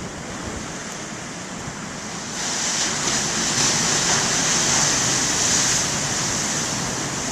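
Big ocean waves breaking and rushing on a rocky shore, the surf swelling louder about two and a half seconds in, with wind on the microphone.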